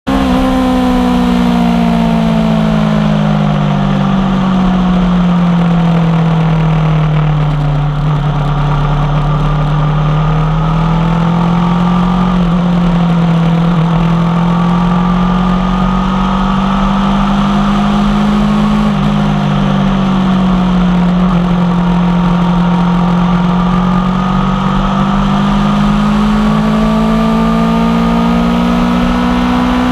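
2016 Aprilia Tuono V4 1100 Factory's V4 engine running through an unbaffled aftermarket exhaust. The engine note drops over the first several seconds, climbs back, dips again about two-thirds of the way in, then rises toward the end as the throttle changes.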